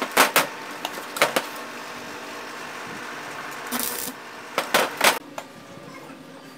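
Arc welder tack-welding steel angle bar: several short bursts of arc crackle, each under half a second, the longest about four seconds in, over a steady hum.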